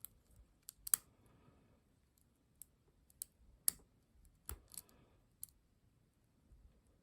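Lock picking on a Ruko ASSA Abloy lock: the pick and tension wrench working the pins make about ten sharp, irregularly spaced clicks, the loudest about a second in. This is the stage where the lock's last pins resist being set.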